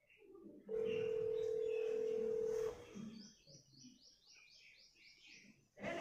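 Ringback tone of a call placed on a smartphone app, heard through the phone's speaker: one steady tone about two seconds long. It is followed by a quick run of about nine short, high, falling chirps.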